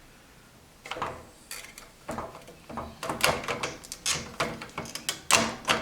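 Plastic dishwasher upper-basket adjuster clicking and knocking against the rack as it is worked into line: a string of sharp clicks starting about a second in, growing busier, the loudest near the end.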